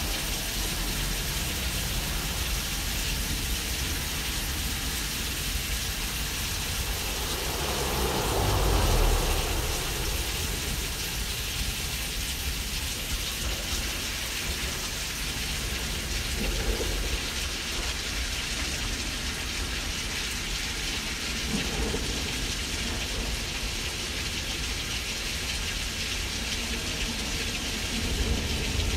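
Simulated thunderstorm: a steady hiss of rain with a low rumble of thunder swelling and fading about eight seconds in, then fainter, shorter rumbles later on.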